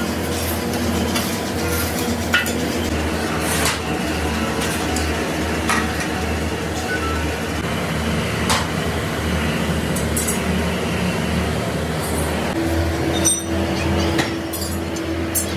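A steady machine hum with scattered metallic clinks and knocks as shovels and steel moulding flasks are handled on a concrete floor in a sand-casting foundry. A steady tone joins the hum about thirteen seconds in.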